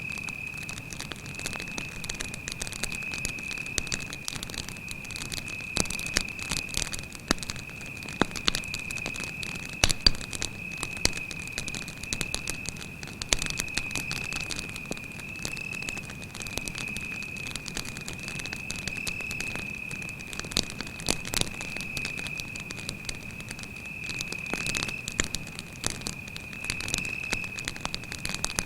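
Wood campfire crackling and popping, with a few louder pops near the middle, over a steady high-pitched cricket trill.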